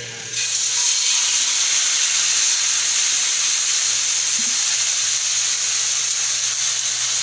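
Marinated chicken leg quarter sizzling in a little hot oil in a pan. It starts suddenly as the chicken is laid in and carries on as a steady, loud hiss.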